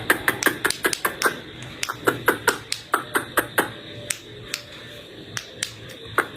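A rapid run of sharp clicking or smacking sounds, about four or five a second, thinning out after about four seconds.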